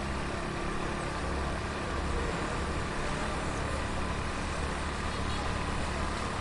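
Heavy street traffic heard from within it: motor vehicles and engines running, a steady low rumble under a constant street noise.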